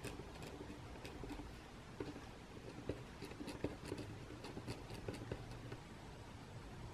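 Retractable pen writing on lined notebook paper: faint, irregular scratching with small light ticks from the pen strokes, over a low room hum.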